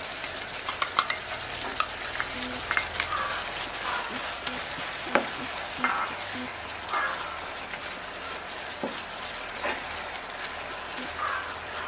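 Spiced chilli-pickle gravy sizzling and bubbling in a non-stick pan as a spoon stirs the fried kanthari chillies through it, with scattered clicks and a few light knocks of the spoon against the pan.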